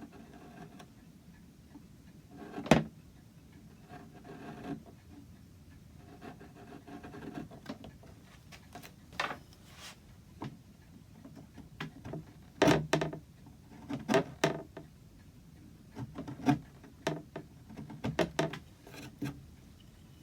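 Chisel working the wooden top of an antique clock hood, squaring out a chipped spot: soft scraping strokes with a string of sharp knocks and taps, busiest in the second half.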